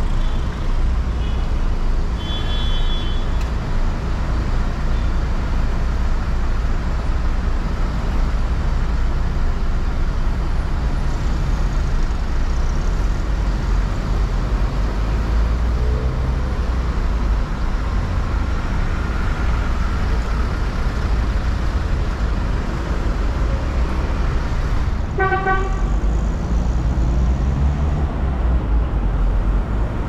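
Steady low rumble of slow city street traffic and engines, with short car-horn toots about two seconds in and again around 25 seconds in.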